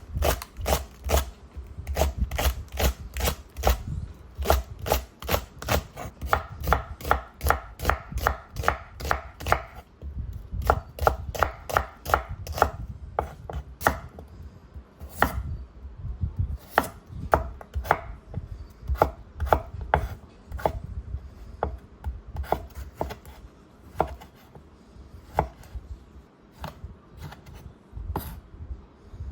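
Kitchen knife chopping food on a cutting board: a steady run of sharp strokes, about two to three a second, each with a dull thud from the board, broken by a few short pauses.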